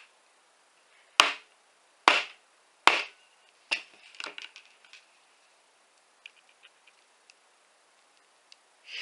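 Rubber mallet striking the spine of a cheap folding knife to drive its blade into copper NM-B electrical cable: three hard blows a little under a second apart, then a run of lighter taps.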